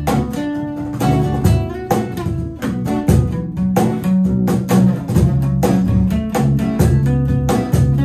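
A small band playing an instrumental passage: two acoustic guitars strummed, an electric bass guitar holding low notes, and a cajón keeping a steady beat.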